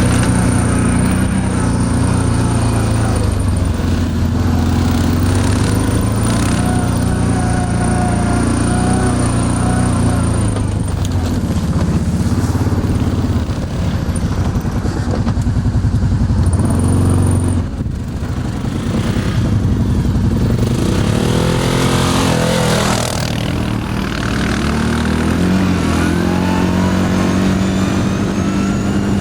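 ATV engine running under changing throttle, its pitch sweeping up and down as it revs and eases off, then climbing steadily near the end.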